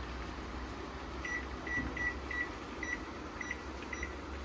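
Microwave oven keypad beeping as its buttons are pressed to set the cook time: about seven short, high beeps at an uneven pace, over a steady low hum.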